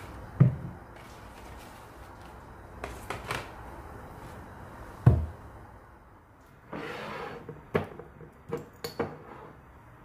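Bottles being unpacked from a cloth tote bag and set down on a kitchen countertop: two heavy thuds, a short rustle of the bag, and several lighter knocks and glass clinks near the end.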